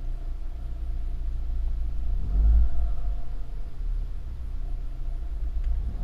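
Car engine idling, heard from inside the car, with a brief rise in revs about two seconds in before settling back to idle.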